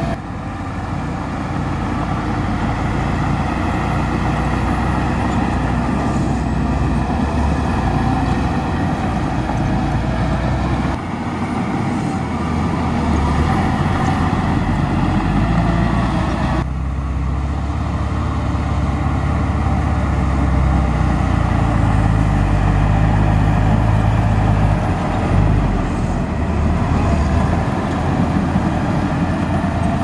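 Heavy diesel earthmoving machinery running steadily and loudly, with the engine sound shifting abruptly about 11 and 17 seconds in.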